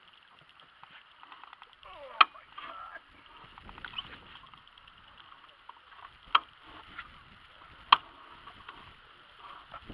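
Sharp knocks and handling noise on a boat while a large catfish is brought to the landing net beside it. Three loud, sudden knocks stand out, several seconds apart.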